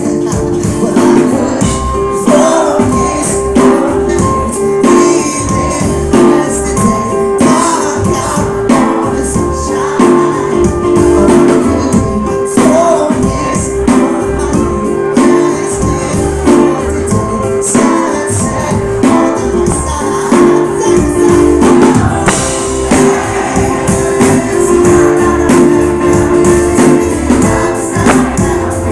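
Live rock band playing loud: drum kit, electric guitar and a lead singer, amplified through a club's PA.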